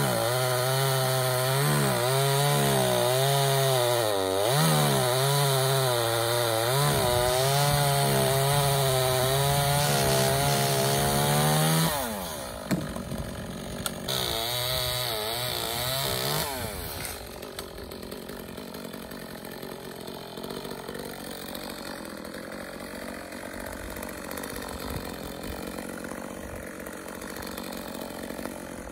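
Chainsaw running at full throttle, its pitch dipping and recovering as it cuts. About twelve seconds in it drops away, revs up again briefly around fifteen seconds, then gives way to a quieter, duller noise.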